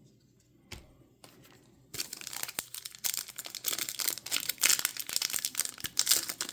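Plastic trading card pack wrapper being torn open and crinkled, starting about two seconds in after a couple of light clicks.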